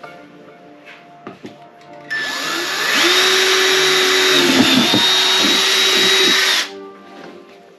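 Electric power drill spinning up with a rising whine about two seconds in, then running steadily, its pitch dipping several times as it works, and stopping after about four and a half seconds.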